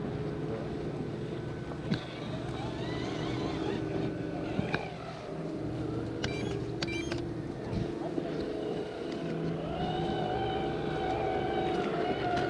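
Radio-controlled scale trail trucks driving, their electric motors and gear drivetrains whining steadily, the pitch climbing a little near the end. Faint voices in the background.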